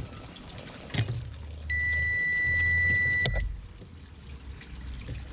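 A steady electronic test tone, pitched fairly high, held for about a second and a half and cut off by a sharp click, with a brief higher beep right after. This is the stimulus tone of an animal hearing test. A single click comes about a second in.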